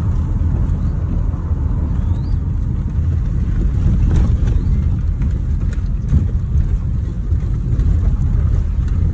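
A moving car heard from inside the cabin: a steady low rumble of road and engine noise, with a few light clicks about four to six seconds in.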